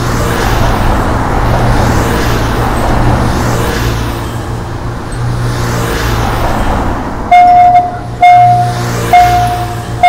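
Road traffic sound effects, a steady mix of car and tuk-tuk engines running. About seven seconds in, a railroad crossing warning bell starts ringing, one clear electronic ding about once a second, as the crossing barriers come down. It warns of an approaching train.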